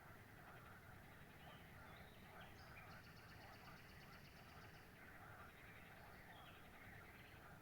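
Faint chorus of small birds chirping and trilling over one another, with a rapid high trill in the middle, over a low steady background rumble.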